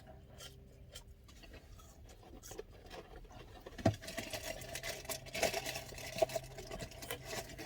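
Faint rustling, scratching and small clicks of food and wrappers being handled while eating, over a steady low hum. The rustling grows busier about halfway through.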